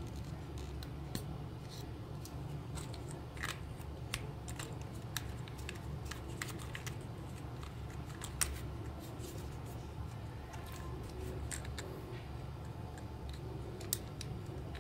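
Small sharp clicks and taps of a plastic toy housing being fitted together and screwed shut with a long screwdriver, scattered irregularly with a louder click about eight seconds in and another near the end, over a steady low hum.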